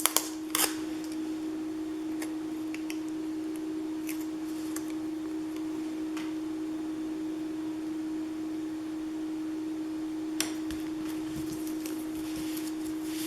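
A steady low hum held at one pitch, with a few soft clicks and taps of paper and stickers being handled and pressed onto a scrapbook page.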